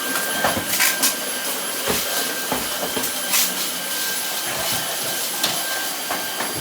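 Cordless Dyson vacuum cleaner running with a steady high whine, with scattered clicks and knocks as the head moves over the floor.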